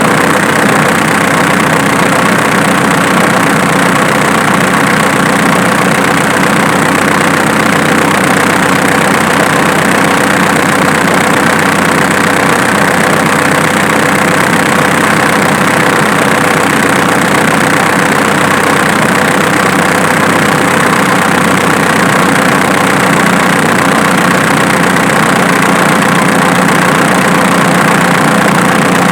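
Diesel engine idling steadily. Its clicking noise was traced to the alternator, not the injection pump.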